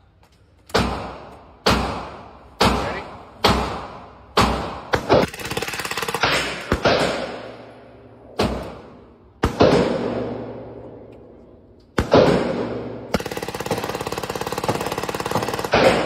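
PPSh-41 submachine gun firing, each shot ringing on in the echo of an indoor range: shots about once a second at first, then short bursts, a pause of a couple of seconds at a small jam, and near the end a long rapid-fire burst of about three seconds.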